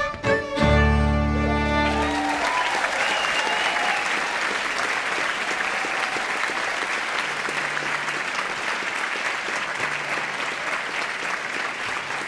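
A fiddle-led string ensemble ends a hornpipe on a held final chord about two seconds in, then the audience applauds steadily.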